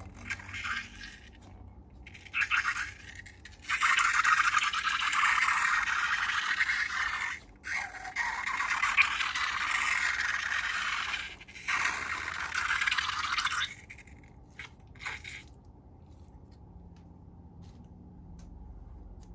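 Slime being mixed, with a dense scraping, crackling sound in three long runs a few seconds each, broken by brief pauses, and a few light taps before and after.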